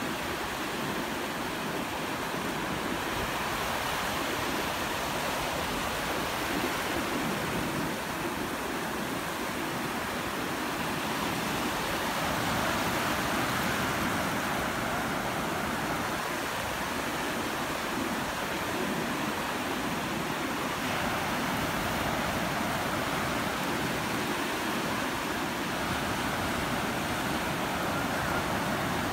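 Ocean surf breaking and washing in over the shallows: a steady rush of whitewater with no single crash standing out.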